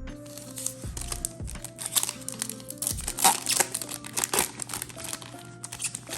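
Foil Yu-Gi-Oh booster pack wrapper crinkling and being torn open, in rapid, irregular bursts that are loudest about halfway through, over background music.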